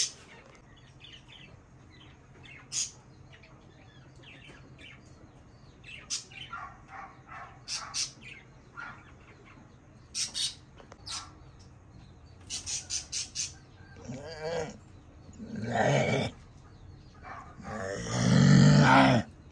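Birds chirping in short, scattered calls, with a quick run of about five chirps midway, and chickens clucking; a louder call lasting over a second comes near the end.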